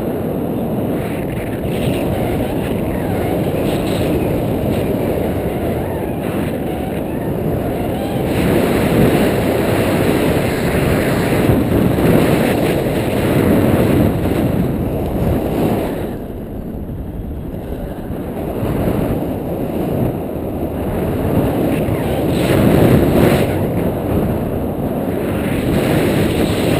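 Wind buffeting the action camera's microphone in paraglider flight: a loud, rumbling rush of airflow that swells and eases every few seconds.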